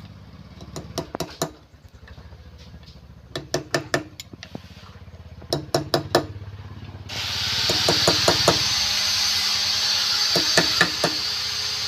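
Workshop woodworking sounds: groups of quick knocks on wood over a low steady hum, then a loud steady hiss that starts suddenly about seven seconds in and continues with more knocks over it.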